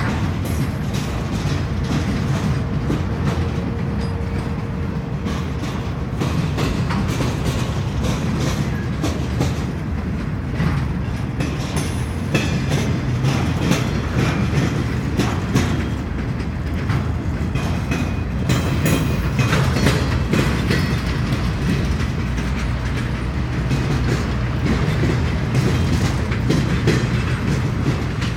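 Freight train of flatcars rolling past at steady speed: a continuous low rumble of steel wheels on rail, with frequent clicks and clanks as the wheels cross rail joints.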